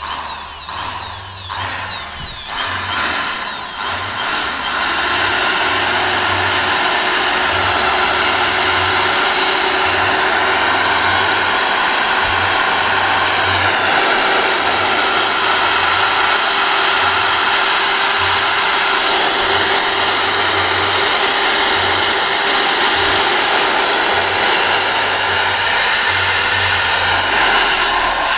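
Brand-new Bosch GSB 550 corded impact drill running with no load. Its motor revs up in a few short pulses on the variable-speed trigger over the first few seconds, then is held at full speed, running steadily with a high whine. The owner calls it very smooth.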